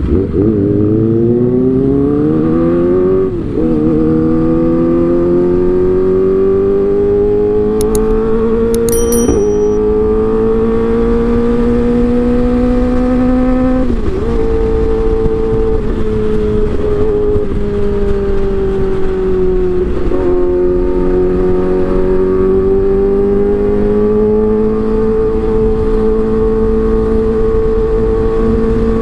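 Kawasaki ZX-25R's 250 cc inline-four running at high revs through an Arrow aftermarket exhaust. The engine note climbs, then drops sharply four times as gears change, and climbs again after each drop.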